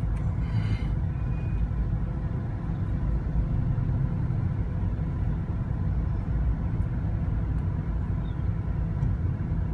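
Steady low rumble of engine and road noise inside a moving Nissan Cube's cabin.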